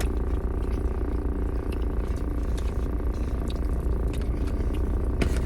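Steady low rumble of a vehicle's running engine heard inside the parked car, with faint clicks and rustles of people eating.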